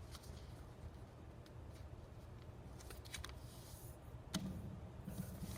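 A sheet of paper being folded and creased by hand, giving faint rustles and a few soft crackles over a low steady hum.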